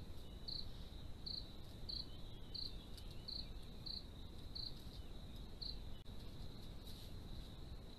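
Night insects calling: a steady high-pitched cricket trill, with a second chirp repeating about every two-thirds of a second until about six seconds in, over steady low background noise.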